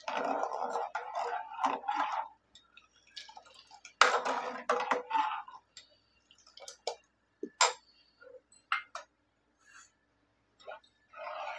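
Cooking utensils clinking and scraping against a pot: a noisy stretch at the start, a sharp clatter followed by scraping about four seconds in, then scattered light clicks.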